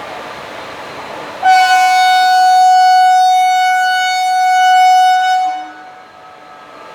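Indian Railways WAG-5 electric locomotive's horn sounding one long steady blast of about four seconds, starting about a second and a half in.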